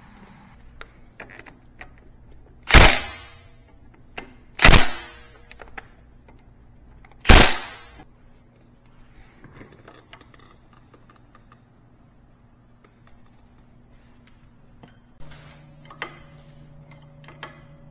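Cordless impact wrench hammering in three short bursts on the bolts of a pressure washer's high-pressure pump, with small clicks of hand tools between them.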